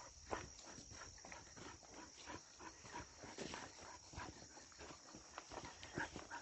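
Faint footsteps along a forest trail, irregular steps a few per second, over a steady high buzz of insects.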